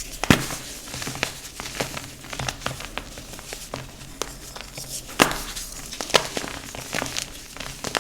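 Slabs of dyed gym chalk being crushed and crumbled: irregular crisp crunches and crackles, the sharpest about a third of a second in and again around five and six seconds in.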